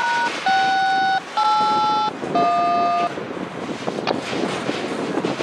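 Four touch-tone (DTMF) dialing tones, each under a second long, each a different pair of pure pitches, as heard over a radio. A single sharp click comes about four seconds in, over steady rail-yard background noise.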